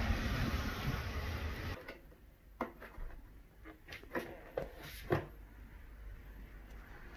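Rain and wind hissing and rumbling outdoors, cutting off suddenly about two seconds in. Then a cat claws at the edge of a cardboard box: about six short, sharp scratches of claws on cardboard over the next few seconds.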